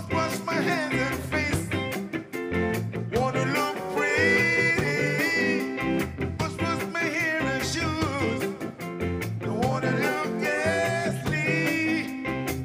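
Live ska band playing, with the keyboard among the instruments and long held, wavering notes standing out in the middle.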